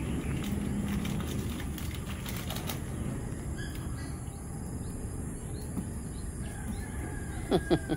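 Crinkling of a plastic snack packet over a steady low background rumble, then two short high yips with falling pitch near the end from a dog begging for a treat.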